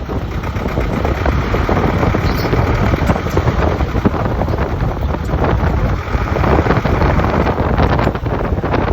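Isuzu Elf light truck running, its mechanical noise covered with a dense, irregular rattle: the abnormal noise under investigation.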